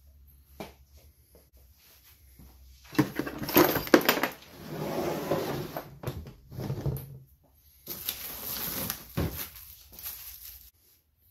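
Handling noise from a Porter-Cable angled finish nailer and its hard plastic carrying case: a couple of sharp knocks, then scraping and rubbing. A second stretch of scraping about eight seconds in ends in a knock as the nailer is set down on a table.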